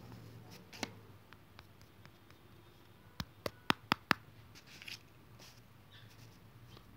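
Five quick, sharp taps in under a second, a little after the middle and louder than anything else. Before and after them, faint scratching of a pencil on notebook paper.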